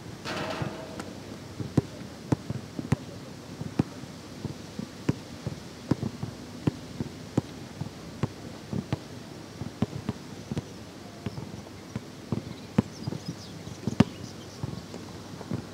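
A basketball being dribbled on a hard court: sharp bounces at uneven spacing, roughly two a second, some hit harder than others.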